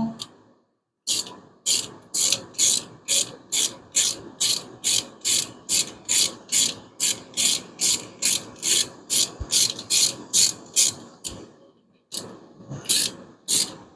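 Hand ratchet wrench clicking in a steady rhythm, about two strokes a second, for roughly ten seconds. After a brief pause near the end, it clicks a few more times.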